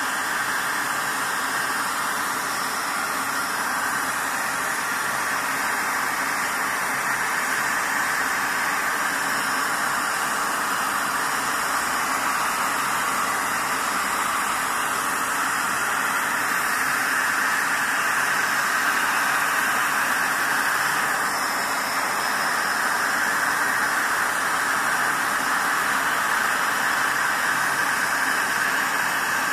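A steady, even hiss of background noise with no rhythm, clicks or stitching.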